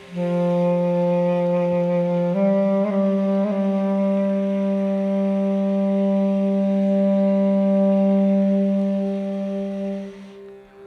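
One long, loud held note, stepping up slightly in pitch about two seconds in, over a steady drone tone; it fades out near the end.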